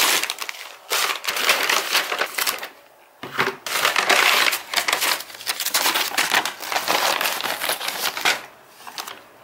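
Stiff brown paper takeaway bag and its paper receipt being handled and opened: loud crinkling and rustling of paper in two long stretches, with a short pause about three seconds in, dying down near the end.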